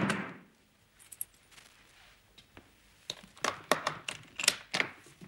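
A wooden dispatch box set down on a table with a thump, then a run of small metallic clicks and rattles as its lock and lid are worked open.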